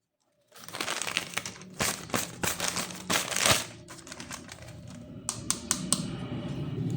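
Plastic toy packaging crinkling and rustling as it is handled and opened, starting about half a second in, with a quick run of sharp clicks about five to six seconds in.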